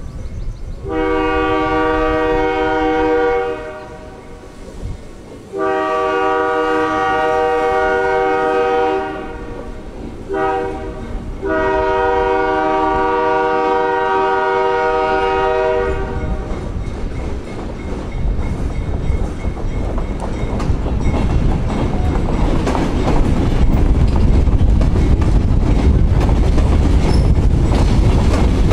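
Train horn sounding the grade-crossing signal: two long blasts, a short one and a final long one. Then the train's rumble and rail noise build as it rolls through.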